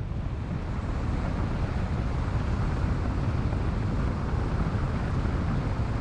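Steady low rumble of a car driving, with wind buffeting the microphone.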